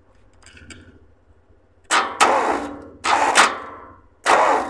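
Tractor diesel engine cranked by its starter motor, which is energised directly across the solenoid terminals with a screwdriver. After a couple of light clicks it turns over slowly in three heavy strokes about a second apart and does not fire. The starter is labouring, which the mechanic puts down to the starter taking too much load, or possibly a weak battery.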